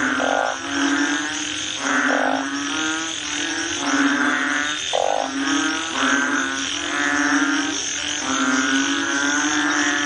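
Banded bullfrogs calling: low, drawn-out moaning calls, about one a second and partly overlapping, with a few short higher notes among them, over a steady high hiss.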